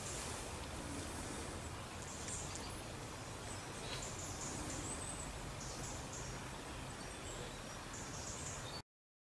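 Faint outdoor background: a steady low rumble with short, high chirps every second or two, cutting off suddenly near the end.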